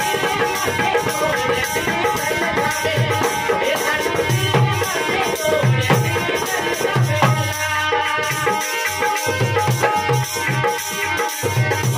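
Live Rajasthani folk music: a harmonium plays sustained chords, a dholak drum beats a steady rhythm, and a handheld jingle tambourine shakes along. A man sings over it through the first half or so, and then the instruments carry on alone.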